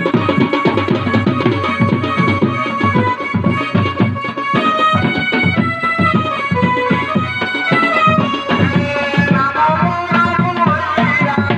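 Live Odia folk music: a hand-played barrel drum beating fast and steadily under a melody played on a reed instrument.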